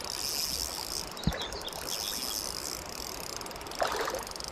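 Fishing reel ticking rapidly in bursts while a large brown trout is being played on the rod, with a single knock just over a second in.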